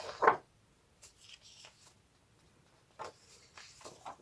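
Sheets of printed paper being lifted and slid off a pile, giving soft rustles about a second in and a louder crackle of paper near the end.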